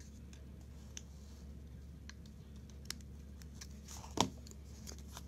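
A few faint, short clicks and taps from scissors and a cardstock greeting strip being handled, with one sharper tap about four seconds in, over a steady low hum.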